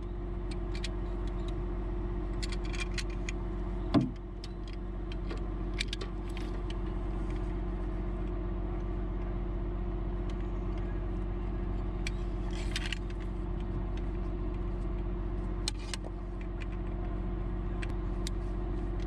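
A truck engine idling steadily, with scattered metal clicks and clinks from a come-along and line grip being handled and hooked onto an overhead power line. One sharp knock about four seconds in, and a short rasp about two-thirds of the way through.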